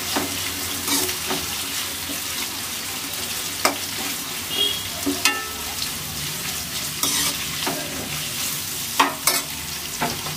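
Sliced onions, green chillies and curry leaves sizzling steadily in hot oil in a nonstick kadai, fried until their raw taste goes. A slotted steel spatula stirs them, scraping and clicking against the pan now and then.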